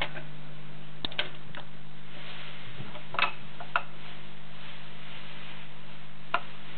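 Garrard RC121 Mk II record changer's mechanism making a few scattered clicks and light knocks over a steady low motor hum after the record's music has stopped.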